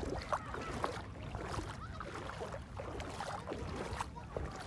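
Outdoor beach ambience: wind rumbling on the phone's microphone, with faint scattered voices in the background.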